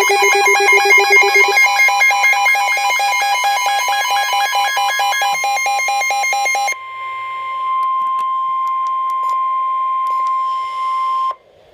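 Emergency weather alert signal: a rapid, pulsing electronic beeping alarm for about seven seconds, then a single steady tone, the NOAA Weather Radio warning alarm tone, for about four and a half seconds, which cuts off abruptly before the warning message.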